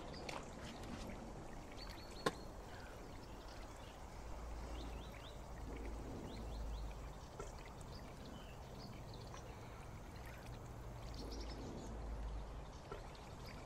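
Quiet outdoor ambience: a low rumble that swells twice, faint scattered high chirps, and one sharp click about two seconds in.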